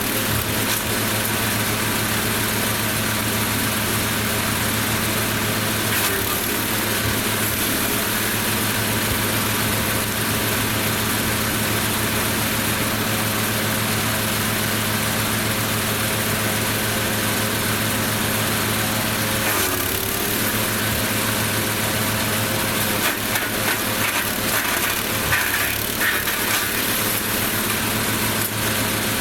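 Lumag Rambo HC15 wood chipper running steadily, an engine hum under a broad whirring rush, with a few short irregular surges in the second half as branches pass through the cutter.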